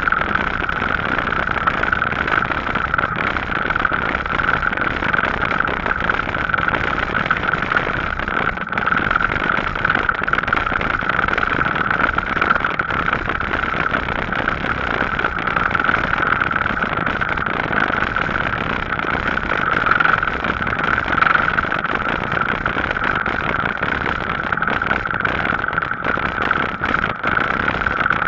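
An e-bike riding steadily on a tarmac path: a constant rush of tyre and wind noise with a steady mid-pitched hum running through it.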